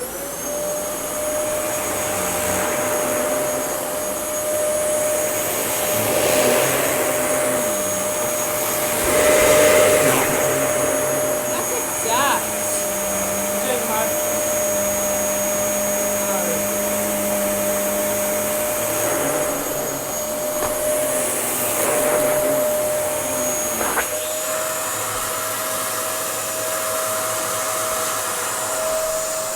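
Dyson DC07 Allergy bagless upright vacuum cleaner switched on and running, its motor giving a steady whine over rushing airflow that swells and eases at times. About three-quarters of the way through the sound changes: the whine steps up slightly and the low rumble drops away.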